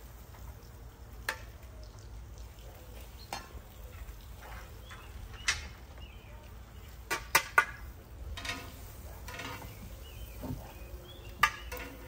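Metal grill tongs clicking and clinking against the grill grate and metal trays as vegetables are moved onto the grill: scattered sharp clicks, with a quick run of three about seven seconds in.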